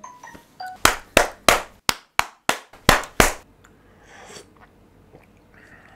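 A quick run of about nine sharp claps or knocks, roughly three a second, lasting about two and a half seconds, then only faint low sounds.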